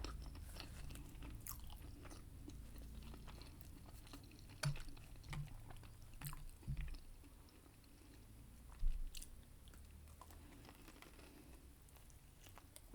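Close-miked chewing of Pizza Hut pizza, with many small mouth clicks and a few louder low thumps around the middle.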